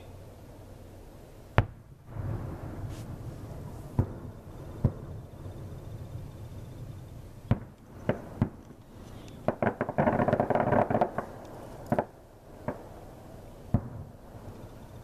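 Aerial firework shells bursting: a series of sharp bangs every second or two, with a rapid cluster of pops about ten seconds in.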